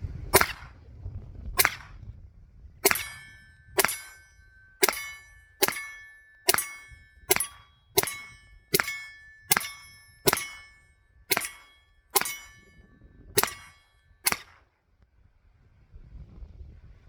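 Taurus TX22 .22 LR pistol fired slow and steady, sixteen shots about a second apart, a full magazine with no stoppage. Most shots carry a short metallic ring, and the firing stops a few seconds before the end.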